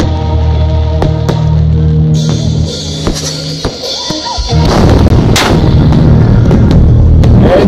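Firecrackers and fireworks going off: sharp bangs, turning into dense, loud crackling about halfway through. A live rock band's music plays under the first two seconds.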